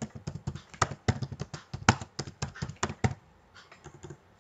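Typing on a computer keyboard: quick, uneven key clicks, several a second, that stop about three seconds in.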